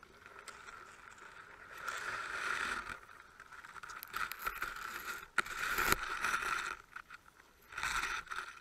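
Underwater scraping and rustling in irregular bursts as the camera housing and speargun brush through seagrass and weed, with a sharp knock about five and a half seconds in.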